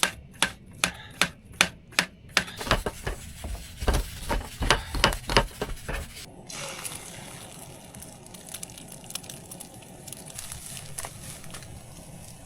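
Knife slicing zucchini on a cutting board: quick, evenly spaced chops, two or three a second, for about six seconds. Then a steady sizzle of frying in the pan.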